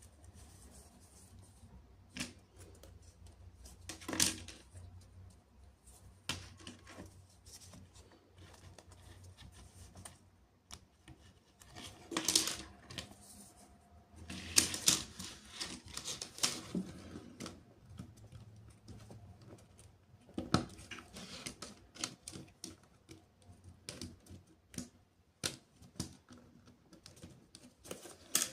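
Hands handling plastic toy-train pieces: irregular sharp clicks and short bursts of rustling and clattering, with busier clusters now and then.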